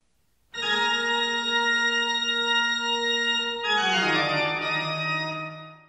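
Short closing music sting: a sustained organ-like chord that, about three and a half seconds in, slides down in pitch to a lower chord and then fades out.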